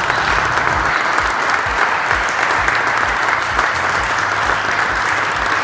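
Audience applauding steadily, a dense, even sound of many people clapping.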